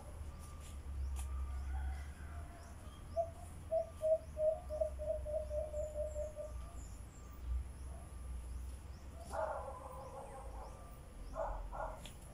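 Outdoor rural animal sounds: a bird gives a quick run of about a dozen short, even notes over roughly three and a half seconds. Dog barks follow, ending in a quick double bark near the end, with faint high chirps throughout.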